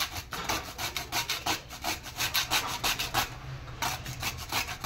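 A piece of coconut being grated on a handheld metal grater: quick rasping strokes, about three or four a second, with a brief pause a little past the three-second mark.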